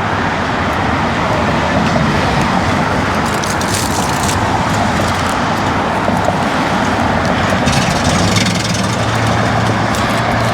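Steady motor-vehicle noise: a continuous low rumble with a hiss over it, level throughout.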